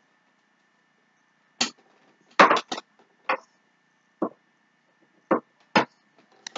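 About eight short, irregular knocks and clinks, three of them in quick succession about two and a half seconds in, as a glass candle jar and other small objects are handled and set down on a wooden dresser.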